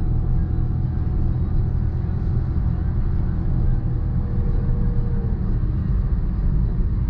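Inside the cabin of a 2020 Honda City with its 1.0-litre turbo three-cylinder under hard acceleration in a 0–100 km/h run: a loud, steady engine and road drone. A thin steady whine in it stops about five seconds in.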